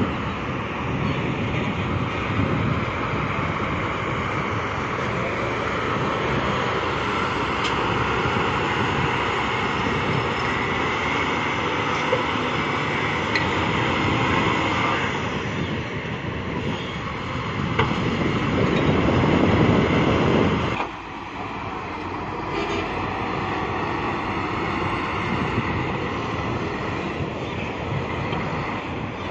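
XCMG LW500KN wheel loader's diesel engine running under load as it pushes and scoops soil. The engine swells for a few seconds, then drops suddenly about two-thirds of the way through, and runs on a little quieter.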